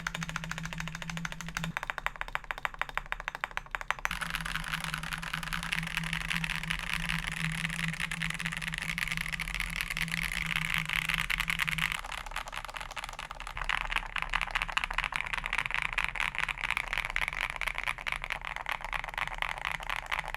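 Akko PC75B Plus mechanical keyboard with lubed Akko CS Crystal switches, PE foam and tape mod, typed on fast and continuously: a dense stream of key clacks. The typing eases off about twelve seconds in and picks up again a second and a half later.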